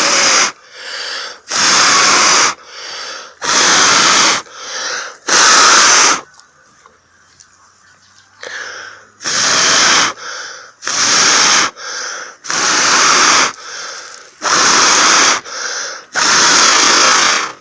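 A person blowing hard, again and again, on a smouldering ember of rotten-wood punk tucked inside a bundle of dry grass, coaxing it into flame. About nine strong blows, each under a second, with quick breaths drawn in between and a pause of about three seconds partway through.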